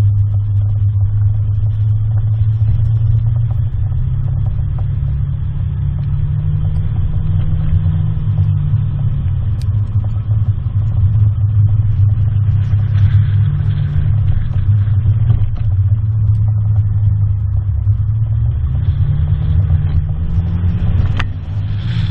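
Engine running steadily with a loud low drone that rises and falls a little in pitch.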